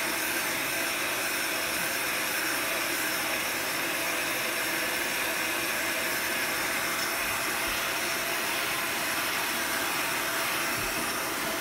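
Industrial heat gun running steadily, its fan blowing a constant hiss of hot air over beeswax encaustic.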